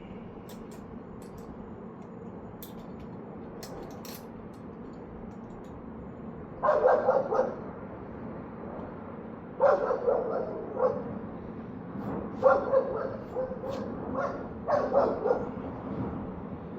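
A dog barking in short runs of barks, the first run about seven seconds in and further runs every two to three seconds after. Before the barking only a few faint clicks sound over a steady low hum.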